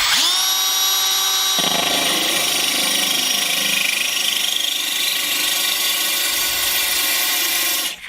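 Cordless drill turning a diamond core bit into wet porcelain tile: the motor whine rises as it spins up, then runs steadily while the bit cuts, and stops abruptly near the end.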